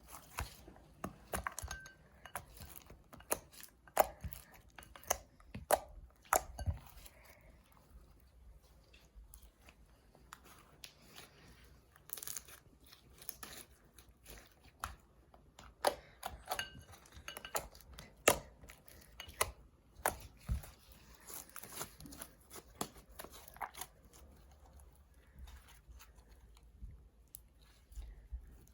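Hands squishing, stretching and kneading wet, water-loosened borax slime, making irregular sticky clicks, pops and squelches.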